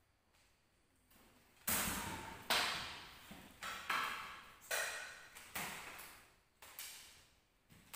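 Wayang kulit leather puppets swung hard through the air and slapped against the cloth screen: about eight sharp swishing strikes, each trailing off, beginning just under two seconds in.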